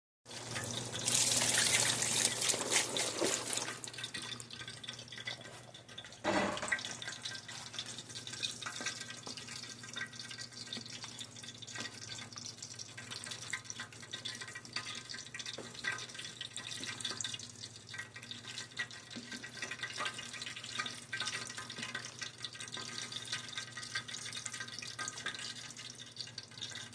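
Pot of red-red, a bean stew in palm oil, sizzling and popping as it cooks. There is a loud hissing surge in the first few seconds, then steady crackling with small pops.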